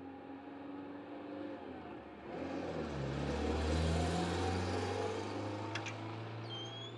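A car passing in the street, its engine and tyre noise swelling to a peak about four seconds in and then fading away. Two sharp clicks and a short high chirp come near the end.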